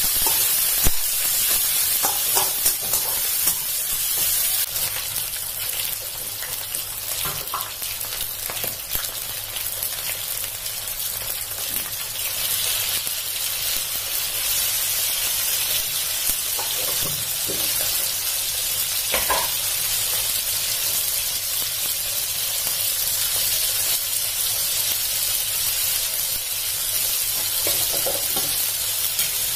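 Chicken pieces sizzling steadily in hot oil in a steel wok, with a few short clinks and scrapes of a metal spatula against the pan.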